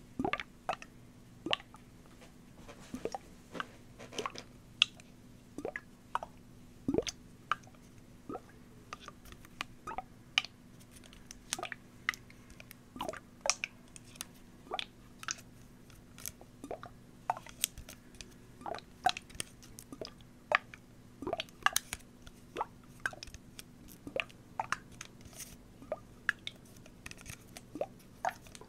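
Thin plastic water bottle handled and squeezed close to the microphone: irregular crinkles, taps and clicks, with a faint steady hum underneath.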